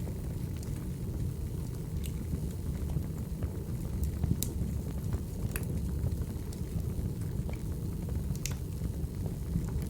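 Wood fire crackling: a steady low rumble of burning logs with sharp pops every second or two, the loudest about four seconds in and again near the end.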